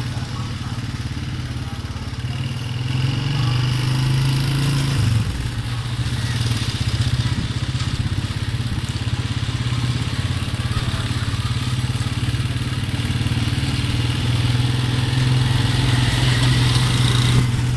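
Small motorcycle engine running steadily under way. Its speed rises a little, then drops sharply about five seconds in, and it runs on at an even pace.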